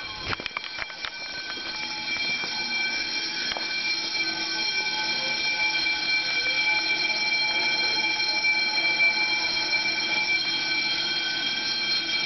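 Apartment building fire alarm sounding continuously, several steady high tones at once, growing louder over the first few seconds. A few sharp knocks in the first second.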